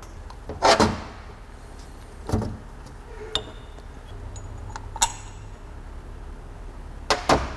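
Metal internal parts of a Saginaw power steering pump clinking and tapping together as they are handled and lined up for reassembly: about five separate clinks, a couple with a brief metallic ring.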